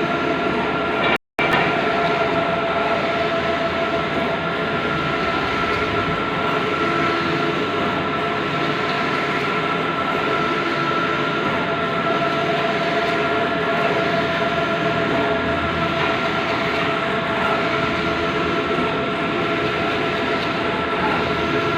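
Bluewin large-format outdoor printer running: a steady mechanical drone with a constant high whine, cut off for a split second about a second in.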